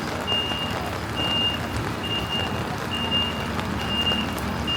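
Vehicle reversing alarm beeping: a high, short electronic beep repeating evenly a little more than once a second, over steady street noise.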